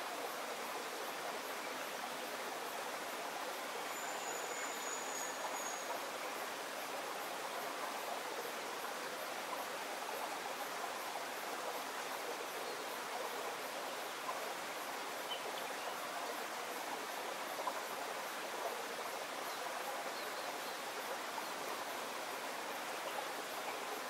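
Steady rushing noise, like running water, with a single high thin whistle about four seconds in that lasts about two seconds.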